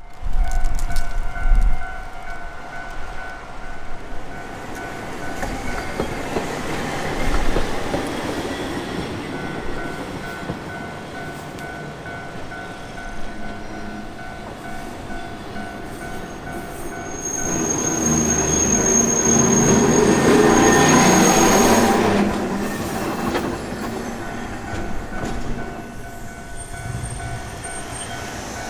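Railroad crossing warning bell ringing in a steady repeating pattern. A Hankai Line tram passes over the crossing from about 17 to 22 seconds in, a loud rumble of wheels on rail with a brief high wheel squeal as it arrives.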